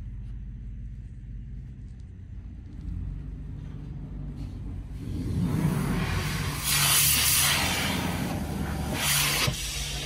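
A car-wash pressure wand spraying water against the car's side window, heard from inside the car: a hiss that starts about five seconds in and swells twice, over a low steady hum.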